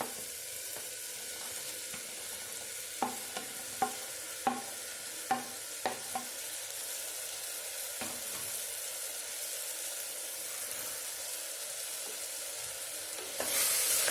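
Chopped vegetables sizzling in hot oil with onion-tomato masala in a pressure cooker as they are stirred, with a run of light clinks of the spoon against the vessel between about three and six seconds in. The sizzle grows louder near the end.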